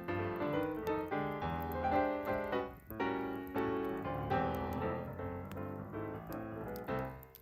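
Background music: a piano playing a run of notes over a bass line, dropping away near the end.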